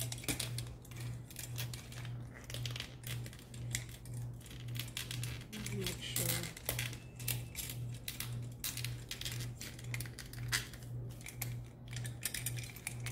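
Light clicks and clinks of a metal purse frame being handled, pressed and adjusted on a work surface, over a steady low hum.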